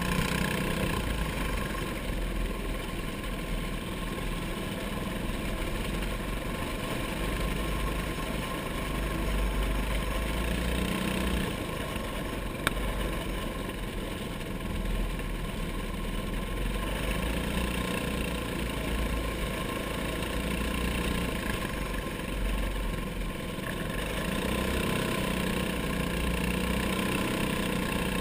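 Racing kart's small single-cylinder engine running steadily at speed, heard from on board, its level swelling and dipping around the dirt oval. A single sharp click about halfway through.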